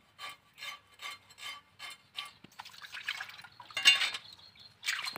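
A knife scraping the scales off a wet whole fish, in short strokes about two or three a second. It turns into rougher, denser scraping with a sharp loud stroke about four seconds in.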